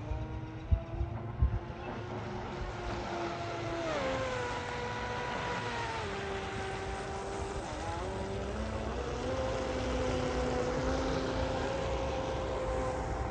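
Pro Boat Blackjack 42 RC catamaran's brushless electric motor whining as the boat runs across the water, the pitch falling and rising again twice with the throttle, over a hiss of spray. Two thumps about a second in.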